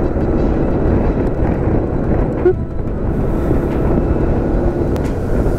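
Steady wind rush over the microphone mixed with the engine and road noise of a Honda Forza 350 scooter being ridden.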